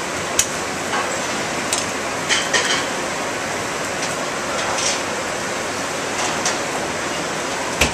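Restaurant kitchen line in service: a steady rush of the ventilation hood, with scattered clinks and clatters of metal pans and utensils, one of them ringing briefly.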